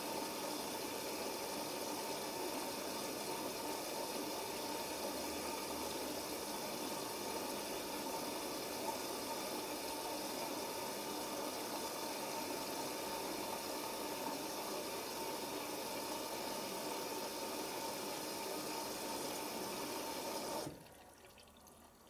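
Hoover Nextra HNL6166 front-loading washing machine taking in water for its prewash: a steady rush of water through the inlet valve and detergent drawer. It stops abruptly about a second before the end, as the valve shuts.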